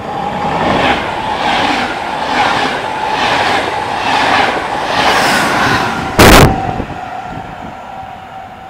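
An InterCity train of double-deck coaches passing through the station at speed without stopping: a loud rushing rail noise that swells in a surge roughly every second as each coach goes by. A short, very loud blast comes about six seconds in, then the noise fades away.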